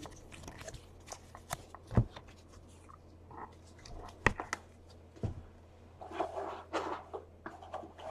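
Trading cards being handled and flicked through by hand: soft rustling and scattered light clicks, with a few sharper knocks about two, four and five seconds in.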